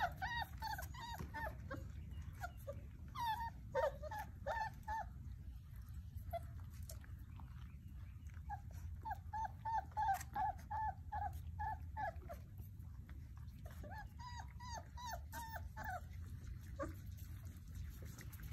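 Basset hound puppies whimpering and yipping, in several runs of short high calls while they tussle.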